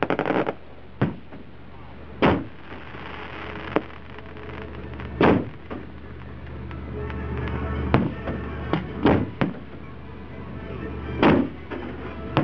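Aerial firework shells bursting: about ten sharp booms at irregular intervals, with a quick run of three or four close together around eight to nine and a half seconds in, and crackling after some bursts.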